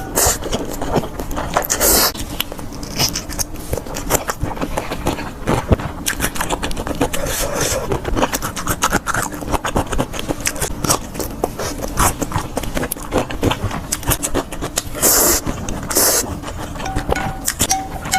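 Close-miked eating: chewing and mouth smacking heard as a dense run of small irregular clicks, with short loud hissing intakes about two seconds in and twice near the end.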